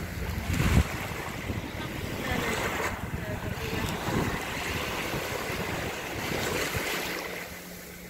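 Small sea waves washing up and breaking at a sandy shoreline, swelling every second or two, with wind buffeting the microphone.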